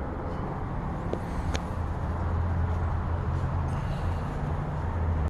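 Steady low hum and rumble of urban traffic or a nearby running vehicle engine, with a couple of faint clicks about a second and a half in.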